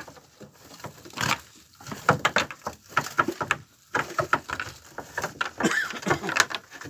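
Wet fishing net being shaken out by hand, throwing off water in irregular splashes and patter, with scattered knocks against the boat.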